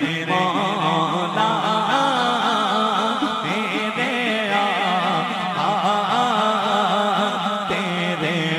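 A man singing an Urdu naat into a microphone, in long, wavering, ornamented lines over a steady low drone.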